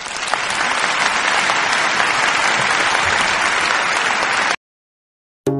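Applause: a dense, even clapping that cuts off abruptly about four and a half seconds in.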